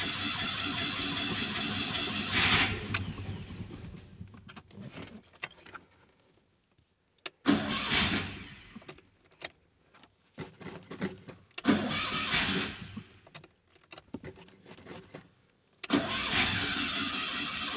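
Fiat 126p's air-cooled two-cylinder engine cranked on the starter in three separate attempts, each dying away into quiet without the engine catching: the car won't start.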